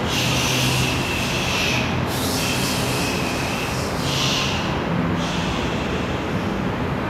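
A steady rumbling noise with a few bursts of hiss, the first about two seconds long and later ones shorter.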